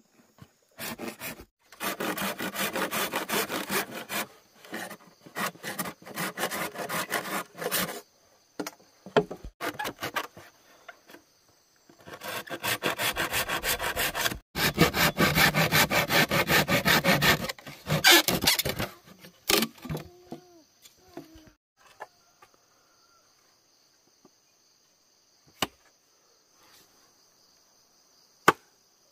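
Hand saw cutting wood in two long runs of rapid back-and-forth strokes, followed by a few sharp separate knocks near the end.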